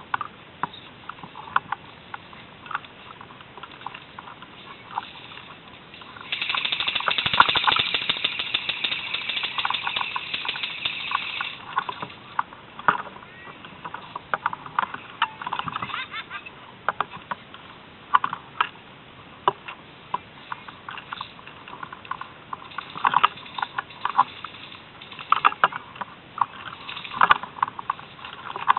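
Rustling and crackling of dry leaves, twigs and brush, with scattered sharp snaps and clicks, as someone moves through woodland undergrowth. About six seconds in, a louder, steadier rustling lasts for several seconds.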